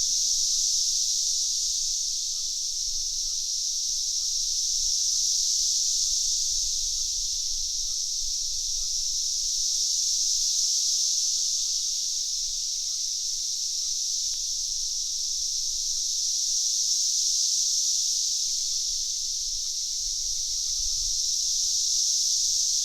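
A loud chorus of many cicadas: a steady high-pitched drone that swells and fades in slow waves every few seconds.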